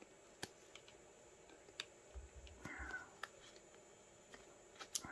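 Faint handling noise from a fabric patch with double-sided tape: a few scattered small clicks and a brief rustle as the tape's backing is worked loose and peeled.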